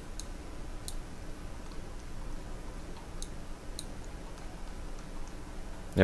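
A handful of faint, irregular clicks from a computer mouse as a map is zoomed in on a computer screen, over a low steady background hum.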